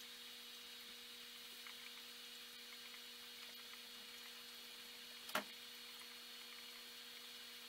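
Faint steady hum and hiss of aquarium equipment: an air pump driving bubbling airstones. One sharp click a little over five seconds in.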